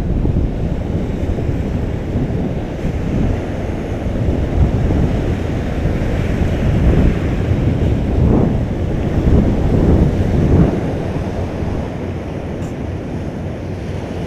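Wind buffeting the microphone over surf on a beach, a continuous low rumble that swells a few times in the middle.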